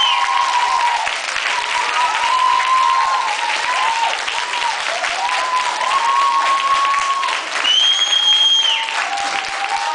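Audience clapping and cheering, with high voices calling out over the applause and one shrill, held whoop about eight seconds in.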